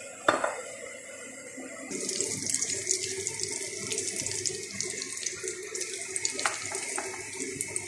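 Olive oil in a frying pan starts sizzling about two seconds in and goes on as a steady crackling hiss as it heats. A single sharp knock comes near the start.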